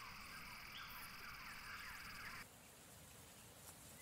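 Faint outdoor nature ambience with soft high chirps, which cuts off abruptly about two and a half seconds in, leaving near silence.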